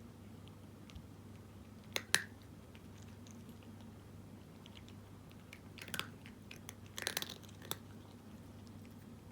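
A cat crunching dry kibble: a couple of sharp crunches about two seconds in, then a quicker cluster of crunches a few seconds later, over a steady low hum.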